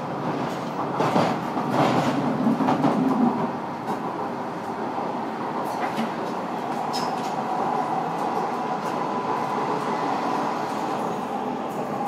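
A train running on elevated track, heard from inside the carriage: a continuous rumble with frequent clicks of the wheels over the rail, loudest in the first few seconds, and a steady whine that sets in about halfway through.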